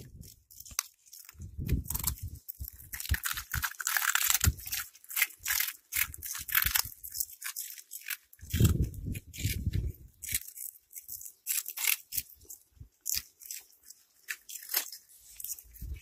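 Cats chewing crunchy orange puffed snack balls, a stream of irregular dry crackles and crunches. Low muffled thumps come twice, about two seconds in and again past the middle.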